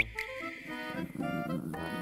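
Playful background music with a reedy, accordion-like melody. It opens with a short, bright sound-effect hit.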